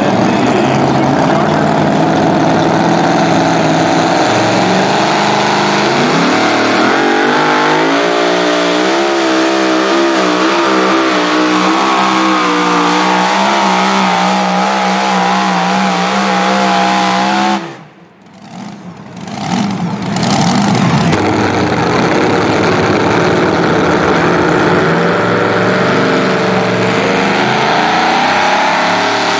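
Supercharged engine of a super modified two-wheel-drive pulling truck running at full throttle under load, its pitch climbing and then wavering as it pulls. The sound drops away sharply about 18 seconds in. Another pulling truck's engine then runs and revs up again near the end.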